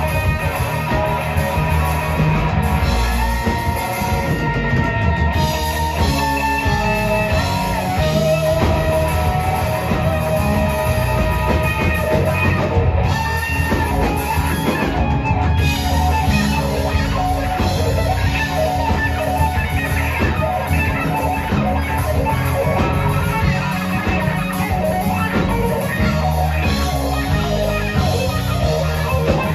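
Live rock band playing an instrumental passage: electric guitar over a drum kit, bass guitar and keyboard.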